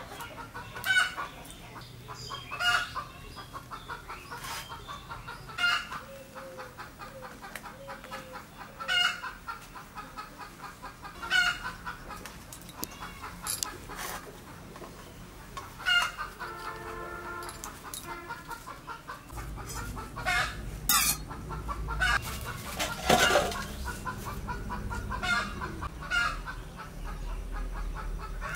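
Domestic chickens clucking, short calls every second or two, with a longer call near the middle. A low rumble comes in about two-thirds of the way through.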